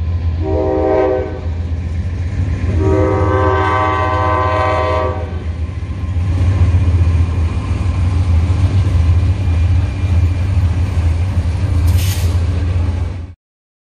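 Diesel freight locomotives sounding a multi-tone air horn at a grade crossing: a shorter blast, then a longer one about three seconds in, over the deep rumble of the diesel engines. The locomotives then pass and the train's cars roll and clatter by, with a brief high hiss near the end.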